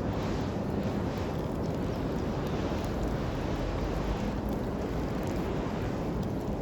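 Wood campfire burning with a steady low rumble and a few faint, scattered crackles.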